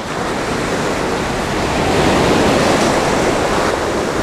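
Ocean surf breaking on a beach: a steady rushing wash of waves that grows louder over the first two seconds, then holds.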